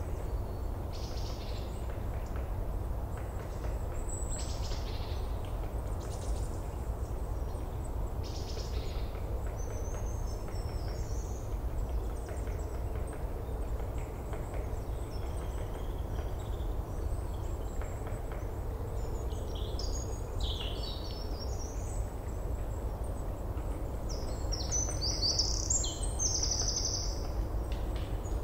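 Outdoor ambience of small birds chirping and calling on and off, sparse at first and busiest near the end, over a steady low background rumble.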